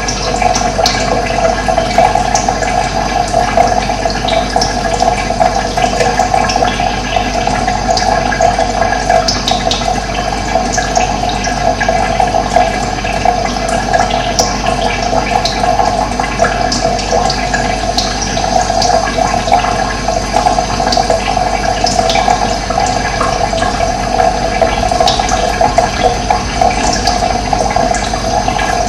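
Running water rushing steadily, with faint short bird chirps scattered over it.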